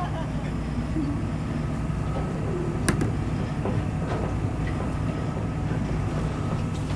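Boat engine machinery running with a steady low rumble while a brailer bag of salmon is craned off the deck, with one sharp click about three seconds in.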